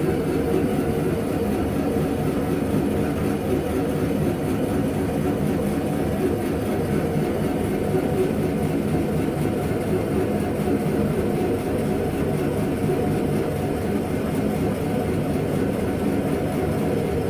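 Machine tool running steadily while boring out a Myford ML7 lathe tailstock, with an even mechanical hum and no change in speed.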